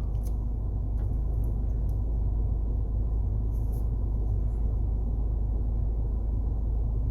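Steady low rumble of a Peugeot 3008's cabin, the car's running noise heard from inside, with a few faint clicks.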